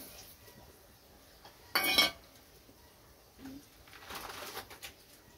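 A small steel bowl knocked once against the rim of an aluminium cooking pot about two seconds in, a short metallic clatter, as sugar is tipped into boiling water.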